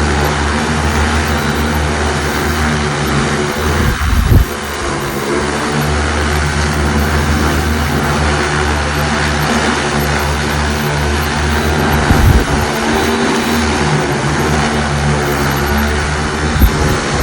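Super X 2.0 agricultural spraying drone's electric rotors running steadily in flight on a post-service test flight, a continuous propeller hum. A few short low thumps break in about four, twelve and seventeen seconds in.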